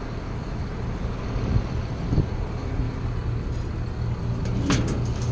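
Farm tractor engine running steadily, with a couple of short knocks about a second and a half and two seconds in.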